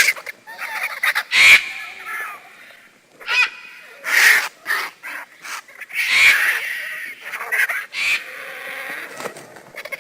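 Vultures calling: a string of short calls at irregular intervals, some with a clear pitch and some rough and hissing.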